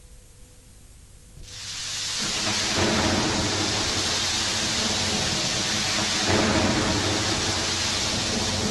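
Rain and thunder sound effect: steady heavy rain fading in about a second and a half in, with low rumbles of thunder swelling under it.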